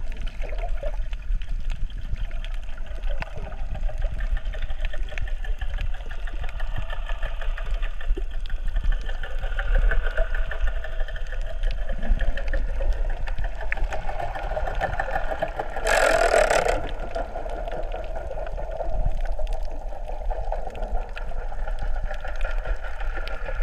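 Underwater ambience picked up by a camera held below the sea surface: a steady, muffled mechanical drone with a pulsing texture, and one brief loud rush of noise about two-thirds of the way through.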